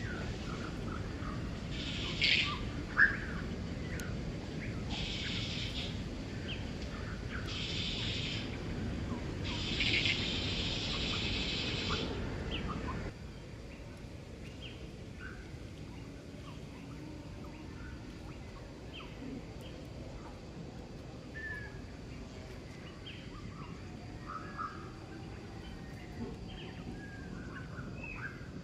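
Outdoor ambience of birds chirping in short, scattered calls. In the first half, a low rumble runs underneath, and a high hissy buzz comes and goes in bursts of a second or two, with one sharp knock about three seconds in. About halfway through, the rumble and the buzzing stop, leaving only the quieter bird chirps.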